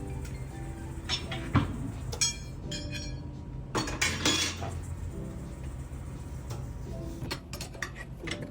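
Metallic clinks and clatter of tools and wheel hardware during tyre-shop work, several sharp strikes, some ringing, over lo-fi background music.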